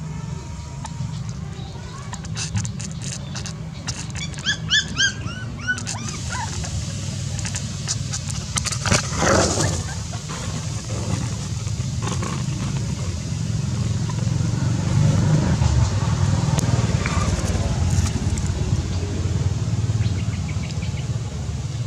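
Dry twigs and brush rustling and clicking as they are pushed aside, over a steady low rumble, with a few short high squeaks about four to five seconds in.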